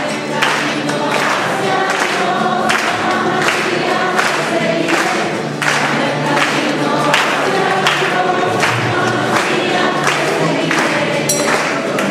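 A choir singing a religious hymn over a steady rhythmic accompaniment.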